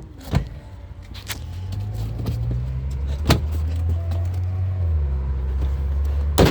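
A vehicle engine running with a low steady hum that drops in pitch about five seconds in, with a few sharp clicks, the loudest near the end.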